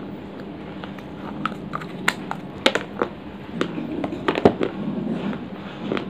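Dry clay pot pieces being bitten and chewed close to the microphone: a run of sharp cracks and crunches, the loudest about four and a half seconds in, over a faint low hum.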